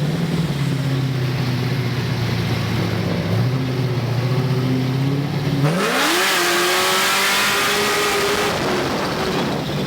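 A loud-exhaust car engine idling, then revved sharply about six seconds in. It holds at high revs for about three seconds and falls back toward idle.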